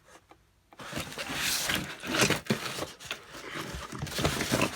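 Rustling, scraping and knocking of a cardboard box and its packing being handled to get at a bicycle engine kit, in irregular bursts starting about a second in.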